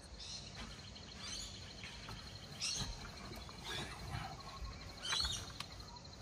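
Birds chirping outdoors, several short high calls about a second apart, over a faint steady insect trill.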